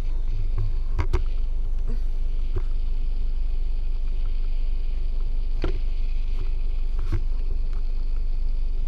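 Steady low rumble of background noise, with a few short clicks and knocks about a second in and again around five and a half and seven seconds.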